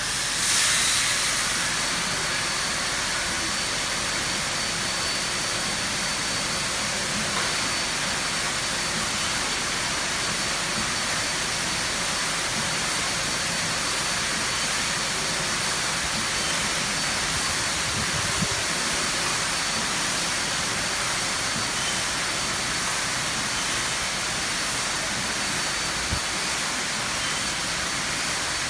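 High-pressure water spraying from an automated touchless truck wash's nozzle arches: a loud, steady hiss that comes on suddenly at the start and holds evenly.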